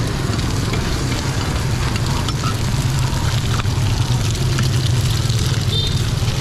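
Cubes of fried rice-flour cake (bột chiên) sizzling in oil on a wide flat griddle pan, with eggs cracked onto them partway through. A steady low rumble runs underneath.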